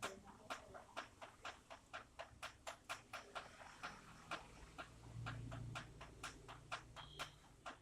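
Rainwater dripping: single drops landing as sharp little clicks, several a second in an uneven rhythm.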